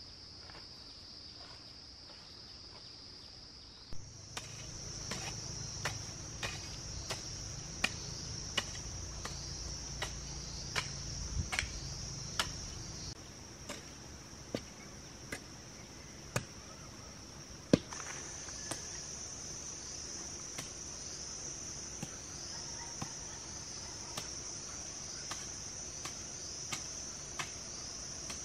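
A garden hoe striking the soil in a steady rhythm, a sharp knock about every second starting about four seconds in, over steady high insect chirring.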